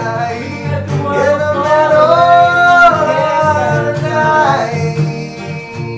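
Male voice singing a long wordless held note over strummed acoustic guitar; the voice slides up about a second in, holds, then falls away near the end.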